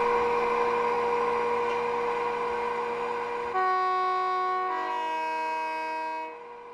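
Sound decoder of an Accurascale OO-gauge Class 92 model electric locomotive playing its running hum, slowly fading, then a two-tone horn: a higher note about three and a half seconds in, stepping down to a lower note about a second later, cut off sharply near the end.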